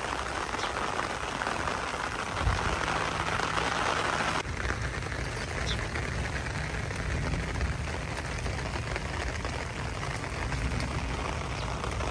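Heavy rain falling steadily, first through leafy tree branches, then pattering into a standing puddle on a courtyard floor. About four seconds in, the sound changes abruptly, turning duller and lower.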